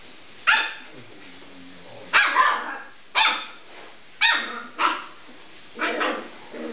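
A puppy barking in play: a string of about seven short barks, roughly one a second.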